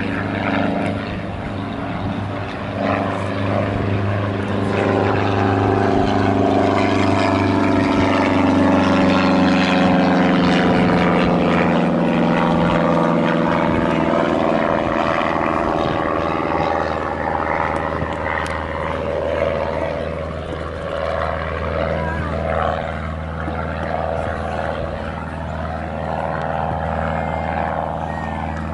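Engine drone that grows louder to a peak about ten seconds in while its pitch slowly falls, then eases off to a steady low hum.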